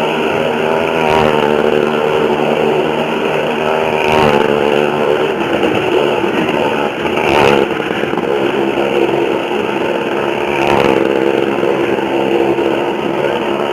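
A motor vehicle engine runs steadily, its pitch wavering up and down, with a short surge about every three seconds.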